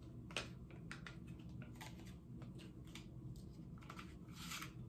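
Faint, scattered small clicks and taps, irregular and a dozen or so in all, with a short soft burst of noise about four and a half seconds in, over a low steady room hum.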